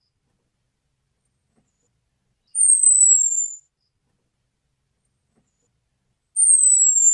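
Orange-headed thrush calls: a thin, high whistle about a second long that slides down in pitch, given twice about four seconds apart, the second running into the end. This is the short call used to lure male orange-headed thrushes.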